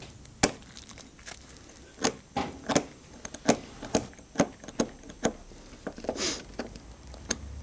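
Irregular sharp metal clicks and scrapes as dried thread-locker is picked and scraped off bolt threads with a hand tool, with one longer scrape about six seconds in.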